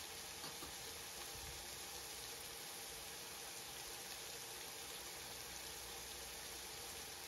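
Diced pork frying in oil in a nonstick wok, a faint steady sizzle.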